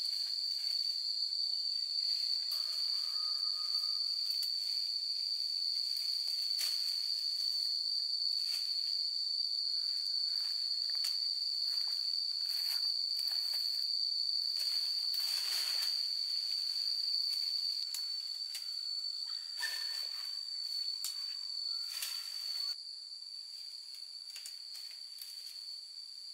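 Insects droning outdoors: one steady high-pitched tone held throughout, with scattered rustles and snaps over it.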